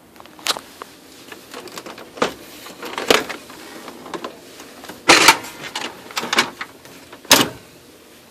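Oki MB480 laser printer's paper-feed mechanism making irregular loud clacks and grinding knocks, about five hard strikes with rougher noise between them. This is the grinding noise of a new replacement unit that jams and shows errors.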